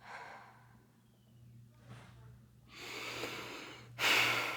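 A woman exhaling in four separate breaths: a short one at the start, a faint one about two seconds in, a longer one near three seconds, and a sharp, loudest one about four seconds in.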